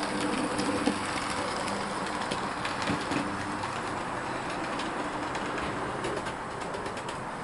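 Hornby S15 OO gauge model steam locomotive running along the layout track: a steady motor hum with light wheel clicks over the rail joints. The hum fades after about three seconds as the locomotive moves away.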